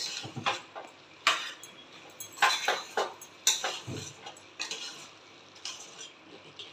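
Metal spoon stirring a thick soya chunk and vegetable curry in a nonstick kadai, scraping and knocking against the pan in irregular strokes.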